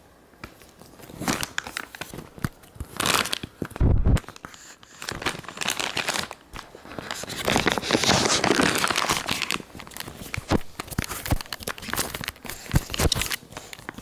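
Crinkly plastic packaging being crumpled and rustled in a baby's hands in irregular bursts, with a dull thump about four seconds in.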